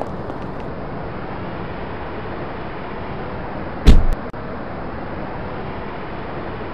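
Cinematic intro sound design: a steady rushing noise bed with a few faint clicks, then one loud, sudden whoosh-and-hit about four seconds in.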